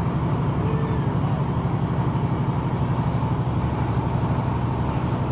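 Steady running rumble of a passenger train travelling at speed, heard from inside the carriage.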